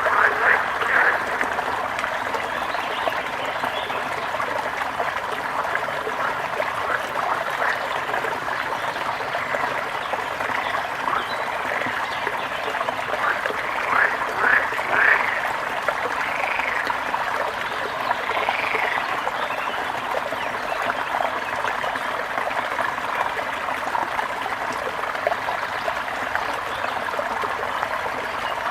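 Water splashing and running steadily, with louder bursts of splashing just after the start and about halfway through, and a few short bird calls shortly after.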